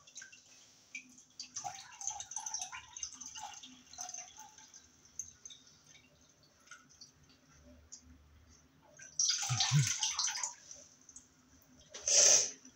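Water dripping and splashing in a stainless-steel kitchen sink as a mould is handled and filled under the tap, with faint small knocks and drips at first, a louder rush of running water about nine seconds in, and a short splash near the end.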